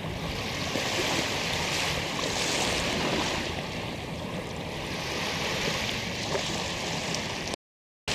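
Small surf waves lapping onto a sandy beach, the wash swelling and easing every couple of seconds. The sound cuts out abruptly just before the end.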